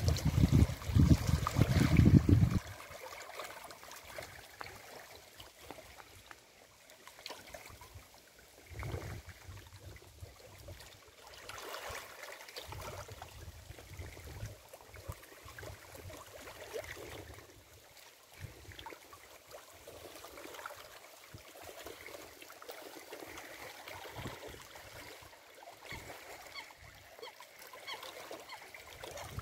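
Small waves lapping and trickling among the stones at a lake's edge. Gusts of wind buffet the microphone with a low rumble, heavily for the first two and a half seconds and then in weaker bursts now and then.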